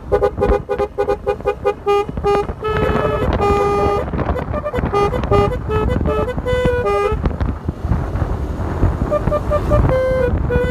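A Basuri telolet horn on a motorcycle plays a fast multi-note melody, jumping between pitches several times a second, over the low rumble of the vehicle. The tune stops about seven seconds in and picks up again more quietly near the end.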